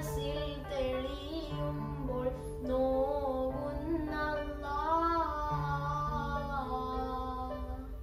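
A solo voice singing a slow, wavering melody into a microphone over an instrumental backing of held low notes that shift every second or two.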